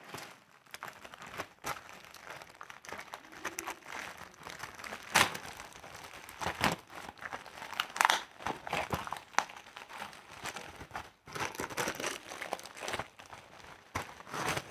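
Plastic delivery packet being opened by hand: irregular crinkling and crackling of the plastic wrapper, with a few louder, sharper crackles.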